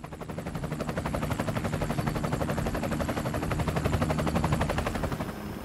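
Helicopter rotor chopping in rapid, even pulses over a steady engine hum, as heard aboard the aircraft. The chop fades into a quieter, steadier drone near the end.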